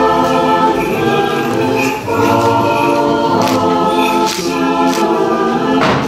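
Orthodox church choir singing a polyphonic hymn a cappella, several voices holding chords that change about every second. A few short sharp clicks cut through, the sharpest near the end.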